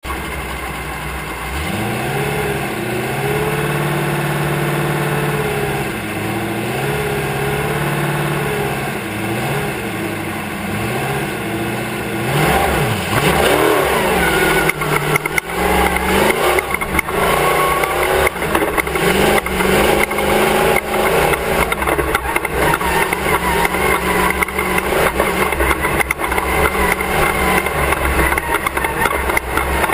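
Class 1 off-road race car's engine, heard from the back of the car, revving up and down several times, then about twelve seconds in pulling away hard. The run turns loud and rough, the engine under a rushing noise and a stream of knocks and jolts from the rough ground.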